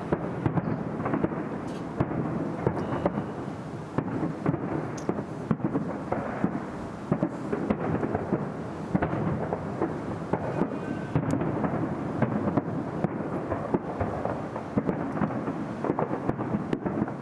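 Fireworks salute going off: an unbroken rumble of overlapping shell bursts, with many sharp cracks and bangs throughout.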